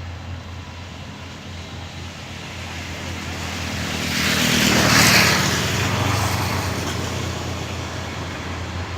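Rice combine harvester running with a steady low engine drone, its noise swelling as it passes close, loudest about halfway through, then fading.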